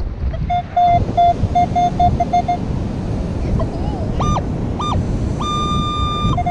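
Metal detector sounding off over a buried target: a run of short low beeps, then two short higher beeps and a held higher tone near the end. Wind rumble on the microphone and surf run underneath.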